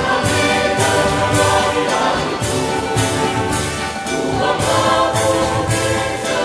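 Mixed choir of men and women singing sustained chords, with instrumental accompaniment keeping a steady beat of about two pulses a second.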